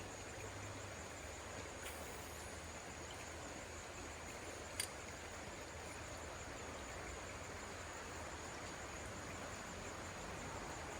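Quiet creek-side outdoor ambience: a steady faint hiss with a thin, steady high tone, broken by one sharp click about five seconds in.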